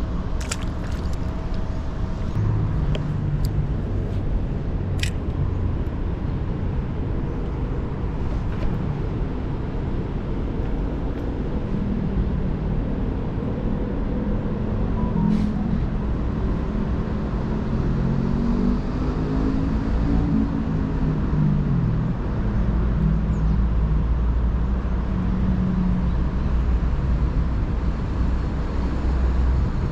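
Road traffic: a steady low rumble, with a vehicle engine rising and falling in pitch through the middle, and a few sharp clicks early on.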